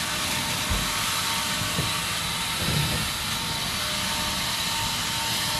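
Handheld leaf blower running steadily: a constant airy rush with a faint steady whine.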